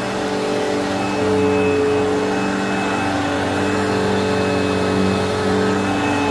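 Eureka Whirlwind upright vacuum cleaner running steadily while vacuuming a rug, a motor hum with a high whine over the rush of air, its pitch dipping slightly now and then.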